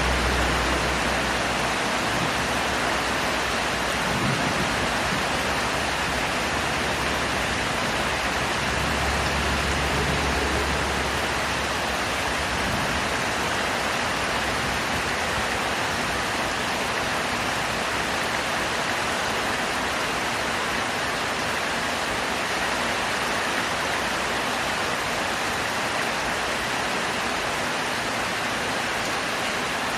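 Heavy rain falling steadily, a dense even hiss. A low rumble sits under it near the start and again around ten seconds in.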